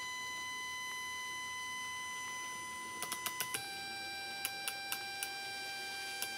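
N-gauge model train motor driven by a PWM controller, giving off a steady electronic tone near 1 kHz that steps down in pitch about halfway through, as the controller's synthesized drive sound changes. Short sharp clicks come in two quick runs around the middle, with one more near the end.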